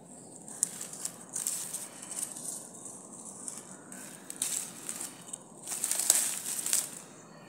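Hand digging and crumbling through loose, dry soil to pull out turmeric rhizomes: soil and roots rustling and crunching in uneven bursts, loudest about six seconds in.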